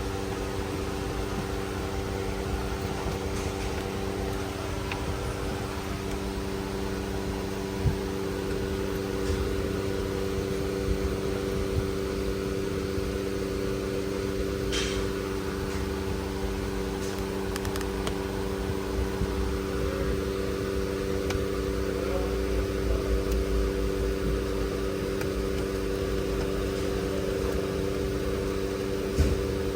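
Steady mechanical hum with a few light clicks and knocks, the sharpest about eight seconds in and near the end.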